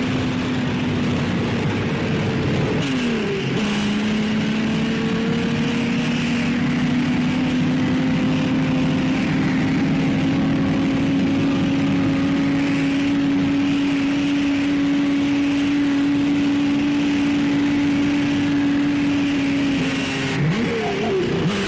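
Engine of a 1957 Maserati Grand Prix car running hard, holding one long note that climbs slowly. There are quick pitch swings of a gear change about three seconds in and again near the end.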